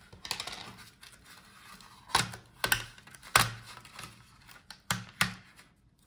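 Crackling peel and sharp clicks of a flat laptop video cable being pulled free of its adhesive tape on the plastic display back cover and handled. A soft rustle comes first, then about five separate clicks, the loudest near the middle.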